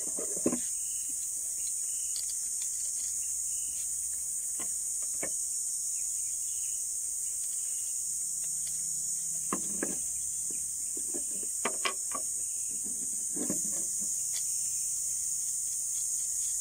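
Steady high-pitched drone of insects in the trees. Over it come several short plastic clicks and knocks as a black plastic tripod-head phone mount adapter is handled and its clamp adjusted, most of them in the second half.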